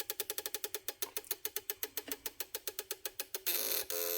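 Radio signal indicator circuit on an electronic project kit clicking out rapid, even pulses, about eight a second. Near the end the pulses turn into a steady buzz. The pulsing sound is the circuit's sign that it is picking up a strong radio station.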